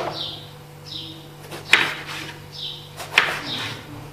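Knife cutting peeled eggplant on a wooden cutting board: three sharp knocks of the blade against the board, at the start, near the middle and about three seconds in, with softer slicing swishes between them.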